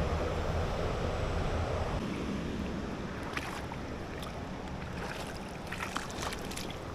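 Mountain stream water rushing steadily, with wind rumbling on the microphone for the first two seconds and a few brief knocks in the second half.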